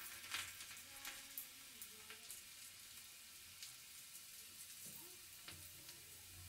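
Chopped garlic and cumin seeds frying in hot oil in a small tempering ladle for a dal tadka: a faint sizzle with a few small crackles scattered through it.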